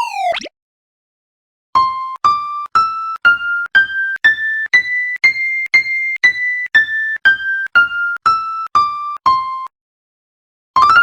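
A run of about sixteen bell-like electronic notes, about two a second, each struck and fading, climbing a scale and then stepping back down. Near the end a quick rising-and-falling sweep begins.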